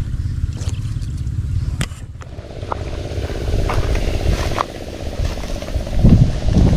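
A motor engine running steadily, with scattered sharp clicks and a few loud low thumps near the end.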